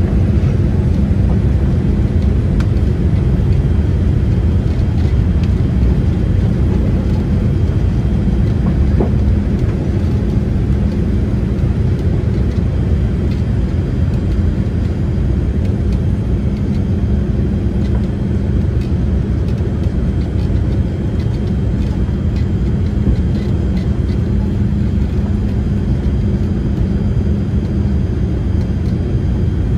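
Boeing 787-8 airliner heard from inside the cabin: a steady low rumble of engine and airflow noise with a constant hum.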